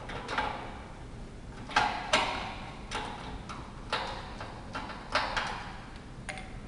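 Door-handle hardware clicking and knocking as an escutcheon plate is fitted back onto a door: about ten sharp clicks and light knocks at uneven spacing.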